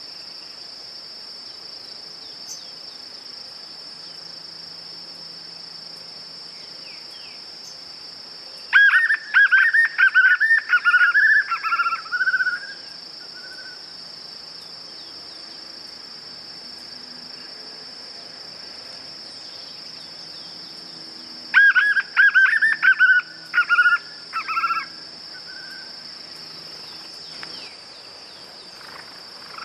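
White-eared puffbird (João-bobo) singing: two loud phrases of fast, rhythmic repeated notes, one about nine seconds in and another about twenty-two seconds in, each lasting three to four seconds. A steady, high insect drone continues underneath.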